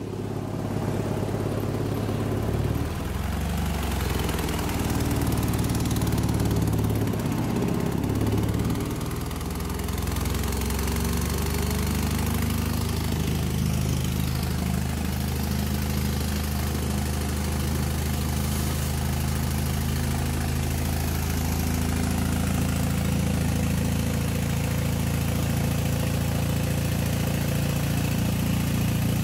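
Engine converted into an air compressor, running at idle. Its note wavers and shifts for roughly the first ten seconds, then settles into a steady run.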